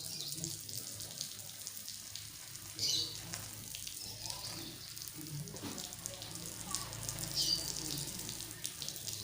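Water splashing and dripping as pigeons are doused with water for a bath, with two short high chirps, about three seconds in and again near the end.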